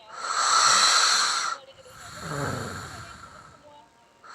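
A person snoring close to a microphone. It begins with a loud hissing breath of about a second and a half, then a quieter snore that falls in pitch.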